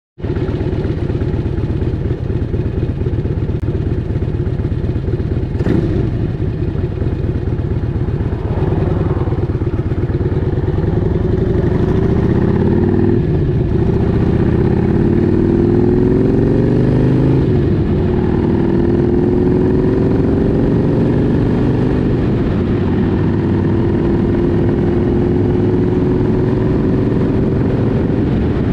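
2005 Harley-Davidson Road King's Twin Cam 88 V-twin engine pulling away and accelerating through the gears. Its pitch climbs and drops back at each shift about halfway through, then holds steady at cruising speed for the last third.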